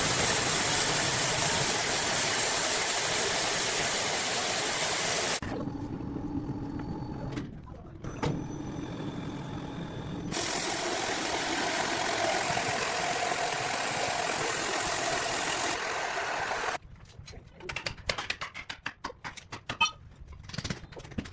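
Heavy sawmill machinery: a dense, steady noise from the bandsaw mill that cuts off abruptly to a quieter machine hum with faint steady tones, comes back, then gives way near the end to a run of irregular knocks and clatter.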